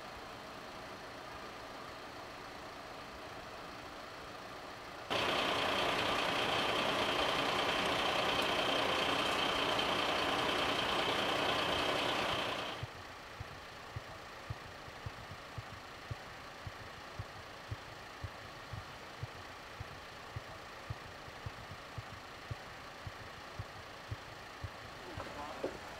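Fire-service vehicles' engines idling in the street. About five seconds in, a much louder steady machine noise starts and runs for roughly eight seconds before cutting off. It is followed by a quieter engine hum with a regular light ticking about twice a second.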